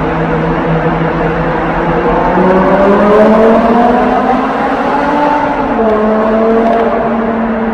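BMW M6's 5.0-litre V10 exhaust under acceleration, echoing off the tunnel walls: the engine note climbs steadily in pitch for about three seconds, then drops back about six seconds in and holds steady.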